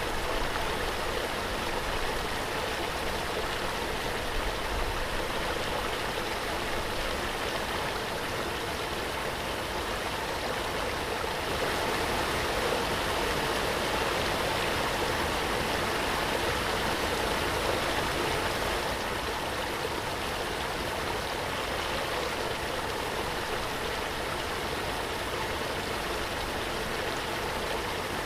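Waterfall: falling water rushing steadily, slightly fuller for several seconds in the middle.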